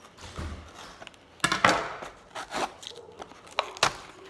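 A knife slitting and picking at the tape seals of a cardboard Lego box. There are scraping rasps, the loudest about a second and a half in, then a shorter scrape and two sharp clicks near the end.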